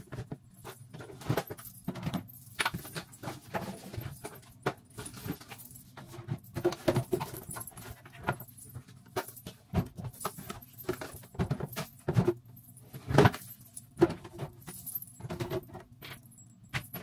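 Plastic body-wash bottles and other toiletries being handled and set down on a shelf: irregular clacks and knocks, with one sharper knock near the end.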